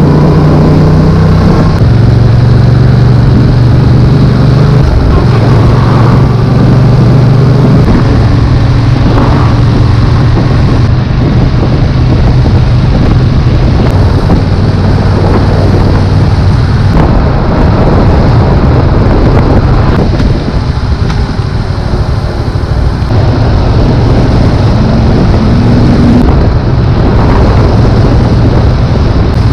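Yamaha XSR700's 689 cc parallel-twin engine running loud and steady, its pitch shifting up and down several times as engine speed changes.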